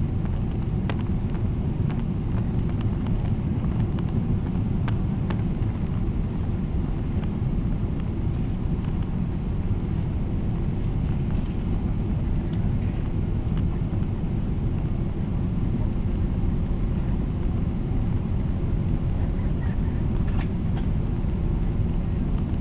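Steady low drone of an airliner's jet engines and rushing air, heard from inside the passenger cabin on the landing approach, with a few faint clicks.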